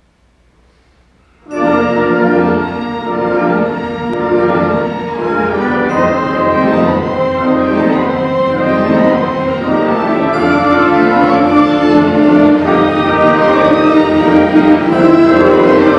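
A full orchestra, strings to the fore, playing a waltz. It comes in all together about a second and a half in, after near quiet.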